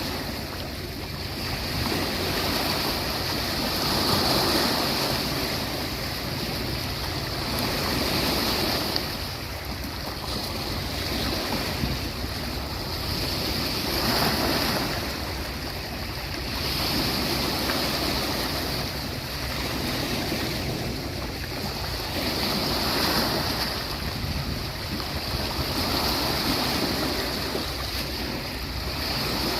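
Sea waves breaking and washing onto the beach. The surf noise swells and falls back every two to three seconds, with no pause between waves.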